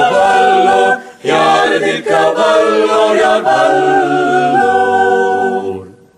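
Small mixed group of women's and men's voices singing a Tamil Christian song a cappella in harmony. A short break about a second in, then a long held chord that fades out near the end.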